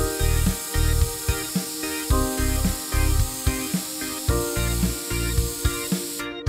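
Hissing spray-paint sound effect over background music with a steady beat. Everything drops out briefly near the end.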